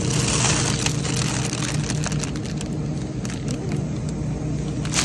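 Steady low machine hum of a supermarket's refrigerated produce cases and ventilation, with a short hiss about the first second and scattered rustles and clicks of plastic produce packaging being handled.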